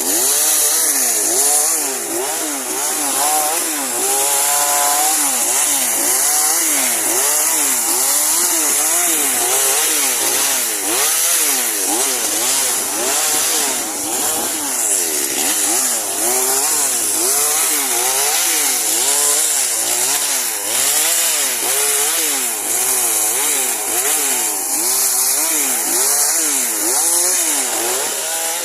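Chainsaw cutting pine branches, its engine speed rising and falling rapidly and repeatedly as it works through the wood.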